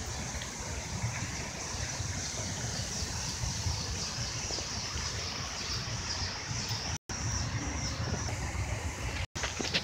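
Steady outdoor background noise, a low rumble under a high hiss, cut by two brief dropouts to silence about seven and nine seconds in.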